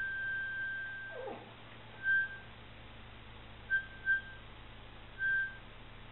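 Boston Terrier whining in thin, high, steady tones: one long whine that stops about a second in, a short downward-sliding whimper just after, then four brief whines spaced out over the following seconds.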